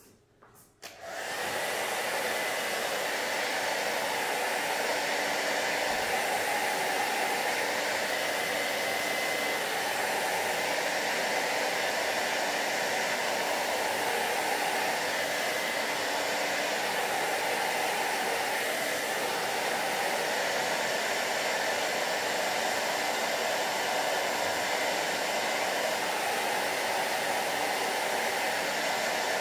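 Hand-held hair dryer switched on about a second in, then blowing steadily with a faint whine, drying freshly screen-printed ink on a T-shirt.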